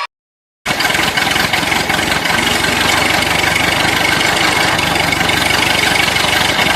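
A vehicle engine running steadily with a fast, even chugging pulse, cutting in abruptly about half a second in after a moment of silence.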